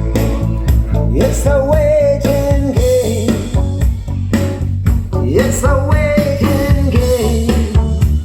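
A pop-rock song with a held, gliding vocal melody, guitar, a steady bass line and drum beats, played loudly through a dual 12-inch mid-bass loudspeaker system with compression-driver horns during a sound check.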